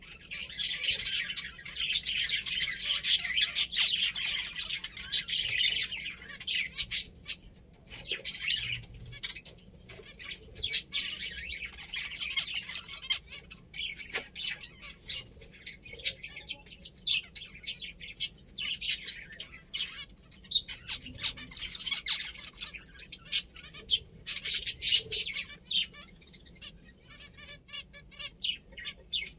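Pet finches chirping in dense high-pitched bursts of a few seconds, with many short sharp ticks scattered among the calls.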